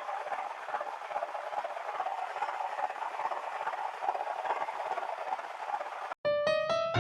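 Continuous rough, rattling running noise from a car, a dense haze of fast irregular ticks, which stops abruptly about six seconds in. Piano music follows.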